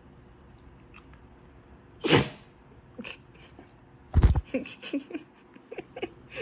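A puppy sneezing: two sharp sneezes, about two seconds in and again about four seconds in, followed by several quieter short sounds.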